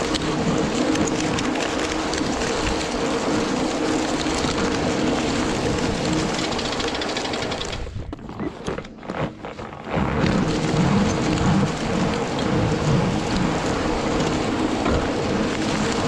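A fatbike towing a two-roller snow trail groomer through fresh snow: a steady crunching, hissing rush of snow under the rollers and tyres, with a faint steady hum in it. It drops away for about two seconds just past the middle, then comes back.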